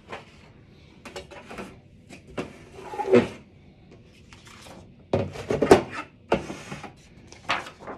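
Sheets of patterned paper and craft supplies being handled on a table: irregular rustling with a few knocks and clatters, loudest about three seconds in and again around five to six seconds in.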